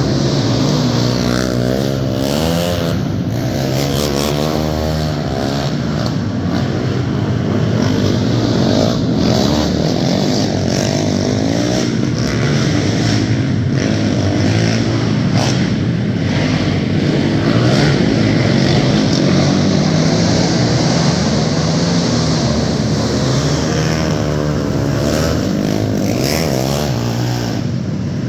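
Several sport quads racing on a dirt track, their engines revving up and falling off as they go through the turns. One quad passes close by a couple of seconds in and again near the end, its engine note rising and then dropping.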